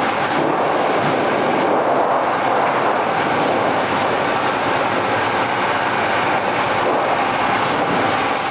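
Home-built roll-forming machine for corrugated sheet running, with a steady, even metallic clatter.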